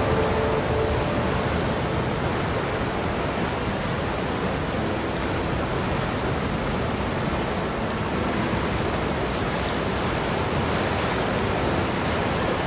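Steady rushing of churning, turbulent creek water, the creek forced to flow backwards by a tsunami surge.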